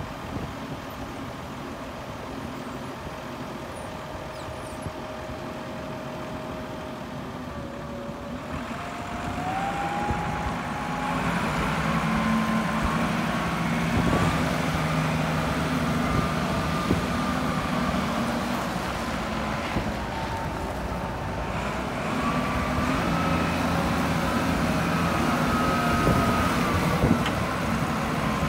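Kalmar DC13-600 heavy forklift running, with a low engine note and a thin steady whine. About eight to ten seconds in, the engine speeds up and gets louder as the truck drives, and the whine rises and wanders in pitch.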